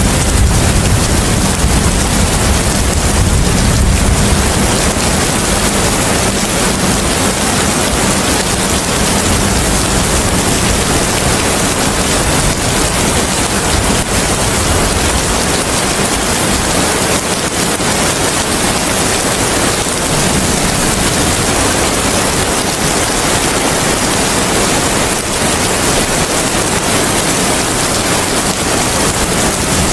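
Steady rain, a dense even hiss, with a low rumble that is stronger in the first few seconds and then eases.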